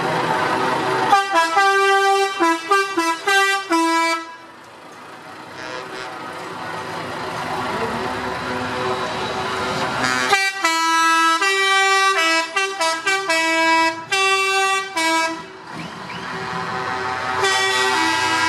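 Truck air horns sounding in strings of short notes at different pitches, like a tune, first from about a second in and again from about ten seconds in, with another horn near the end. Between them the engines of the passing trucks run more quietly, slowly growing louder.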